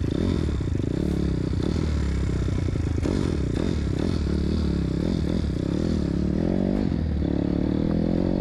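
Pit bike's 160 cc KLX-type single-cylinder four-stroke, newly converted to a four-valve head with a light stage-1 prep, pulling under way on its first ride. The revs rise and fall over and over with the throttle, dipping and picking up again near the end. The carburettor is not yet tuned.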